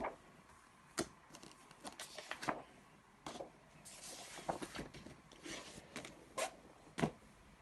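Board game contents being handled: rustling paper and card with scattered light taps and knocks of cardboard pieces.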